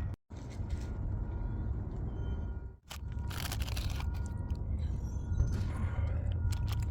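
Wind buffeting the microphone outdoors, a steady low rumble, with a louder hissing gust about three seconds in; the sound drops out briefly twice.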